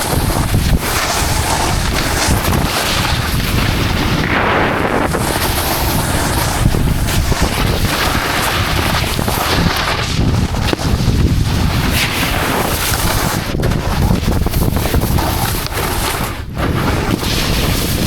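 Loud wind rushing over a helmet- or body-mounted action-camera microphone while snowboarding downhill, mixed with the board's edges scraping across snow.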